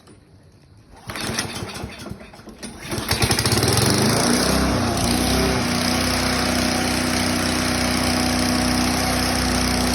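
Toro lawn mower engine starting: quiet at first, then sputtering and firing unevenly from about a second in, catching about three seconds in and running steadily at speed. The mower that would not start is now running.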